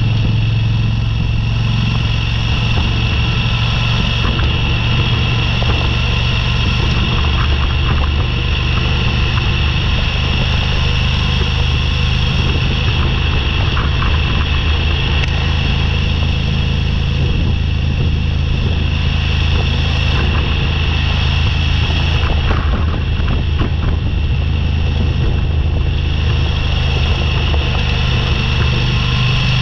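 Motorcycle engine running at a steady pitch while riding on a gravel road, with constant road noise and a few scattered clicks.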